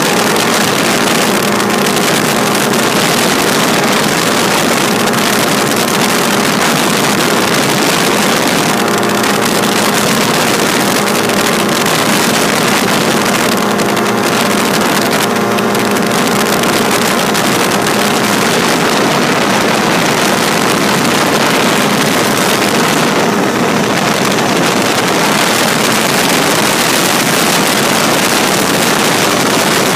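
Drifter ultralight aircraft's engine running steadily at cruise power in flight, a constant drone, with heavy wind rush over the microphone.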